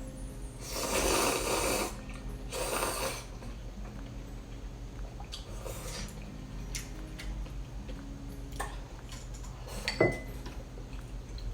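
Close-miked eating of spicy malatang: two loud slurps near the start, one longer and one shorter. Then small clicks of utensils, and a sharp clink with a brief ring near the end.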